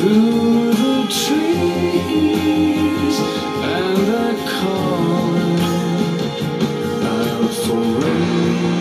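Pop-rock recording playing: singing over guitar-led band backing, with held bass notes underneath.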